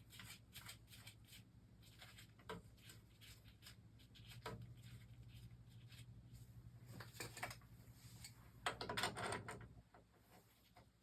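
Quiet scattered clicks and clinks of hand tools and metal burner parts being handled, with a louder clatter about nine seconds in, over a low steady hum.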